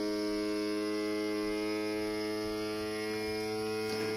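Siaouwo vacuum sealer's pump motor running with a steady hum as it sucks the air out of the bag, squashing it flat; the vacuum cycle is running longer than it normally does.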